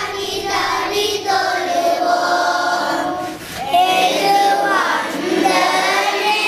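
A group of children singing together, holding long notes that rise and fall, with a brief pause for breath about three seconds in.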